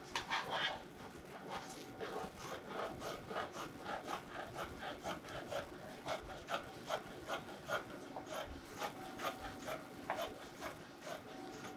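Dressmaking scissors cutting through folded printed fabric along a chalked line: a steady run of crisp snips, about two a second, as the blades close and open again.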